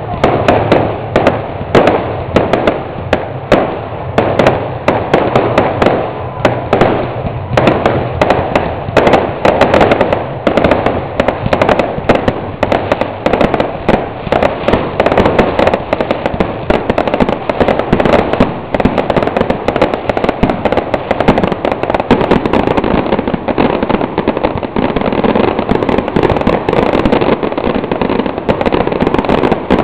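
Aerial fireworks going off in a rapid, unbroken string of bangs over constant crackling, growing denser and more continuous in the second half.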